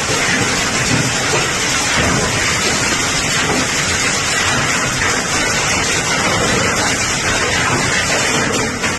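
Heavy hailstorm downpour: a loud, dense, unbroken hiss of falling precipitation pelting surfaces, cutting off abruptly at the end.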